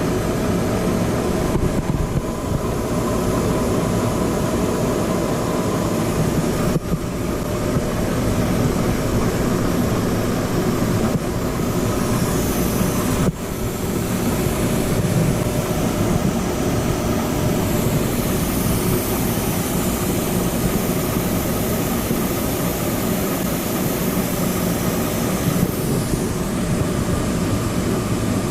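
Heavy machinery running steadily, a constant mechanical hum with several steady tones over it, dipping briefly twice.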